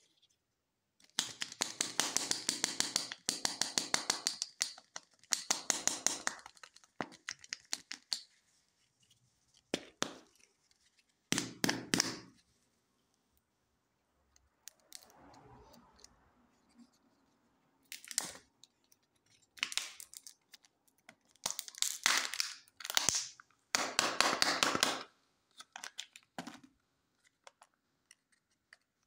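Thin plastic egg capsule of a Kinder Joy-style surprise egg being handled, split and its foil seal peeled back, in several bursts of rapid crinkling and crackling separated by quiet pauses.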